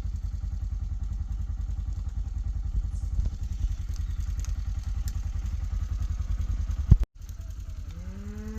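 A small motor vehicle's engine running with a fast, even low pulse, broken off by a sharp click about seven seconds in. Near the end a cow moos once, the call rising and then holding.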